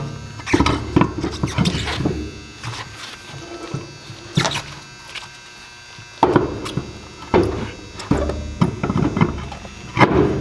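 Irregular knocks, clunks and scrapes of metal parts being handled and test-fitted on a wheel hub, with a low hum at times.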